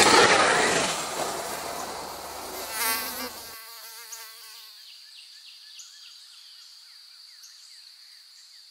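A rush of noise as an electric dirt bike passes close by on a dirt track, fading away over a few seconds. Then a steady high insect buzz with small bird chirps.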